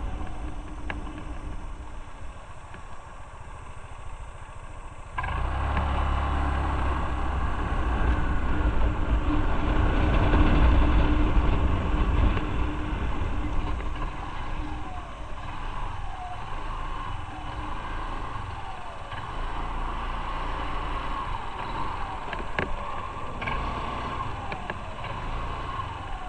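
Motor scooter engine running as it is ridden slowly, with a steady hum early on. A low rumble jumps louder about five seconds in and stays.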